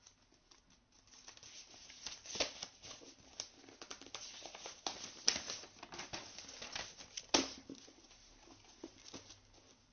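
Faint, irregular taps, clicks and rustling: handling noise close to the microphone, with a few sharper clicks among them.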